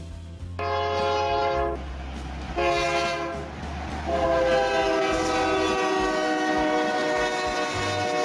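Train horn sounding three times: two short blasts, then a long held one, over a low rumble.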